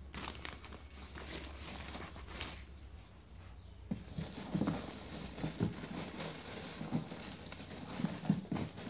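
Footsteps and scattered light knocks and rustles of someone moving about and rummaging for a pair of scissors, with the knocks coming more often from about halfway through.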